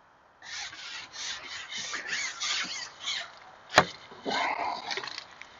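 Carbon match-fishing pole being shipped back hand over hand while playing a small carp: a run of rhythmic rubbing rasps, about three to four a second, then one sharp click and more rubbing.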